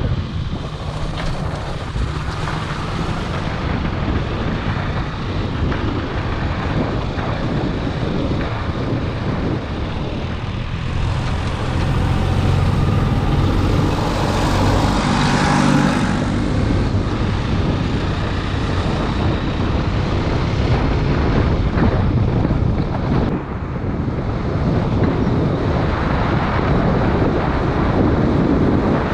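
KTM Duke 250's single-cylinder engine running under way, with wind buffeting the microphone. The engine gets louder for a few seconds around the middle.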